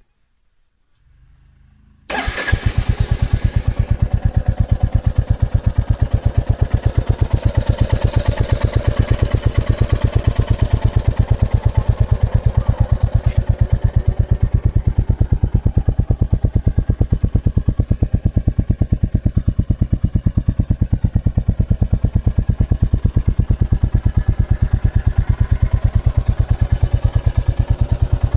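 Royal Enfield Classic 350's single-cylinder engine starting up about two seconds in, catching at once. It then idles with a steady, rapid, even exhaust beat.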